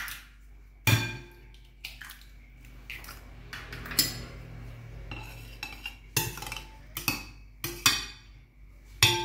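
A metal spoon and eggs knocking against a glass mixing bowl: about seven sharp clinks, each ringing briefly, as eggs are cracked into wet batter and stirred in.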